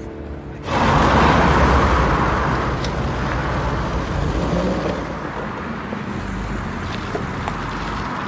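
Soft background music cuts off under a second in, giving way to city street traffic: car engines running and cars moving along the road, a steady wash of engine and tyre noise.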